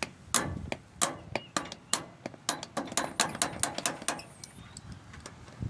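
A quick, irregular run of sharp metal taps, a hammer driving the small retaining pin that holds a Troy-Bilt riding mower's wheel on its axle. The tapping stops about four seconds in.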